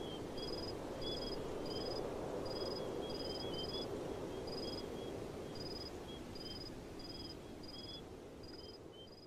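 Quiet outdoor night ambience: a cricket chirping in short, evenly spaced pulses, nearly two a second, with softer lower chirps between them over a steady low rush. All of it fades away near the end.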